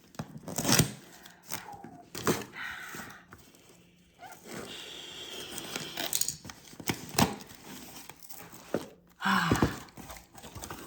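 Packaging of a mystery box being torn open and paper crinkled, with a few sharp knocks as the box is handled.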